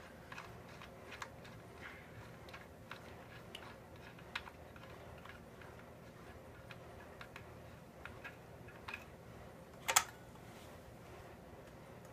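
Faint, irregular small metallic clicks and ticks from the blade wrench, arbor bolt and spindle lock of a Bosch CS10 circular saw as the blade bolt is tightened, with one sharp, louder click about ten seconds in.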